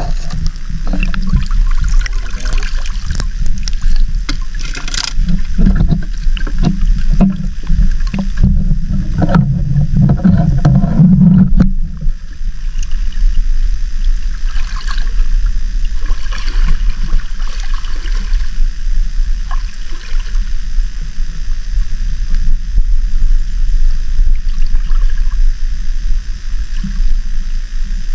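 Water sloshing and handling noise heard from a GoPro in its underwater casing, held submerged in shallow seawater: a low rumble with dense crackles and knocks that stop about 12 seconds in, then a softer hiss with a few faint ticks.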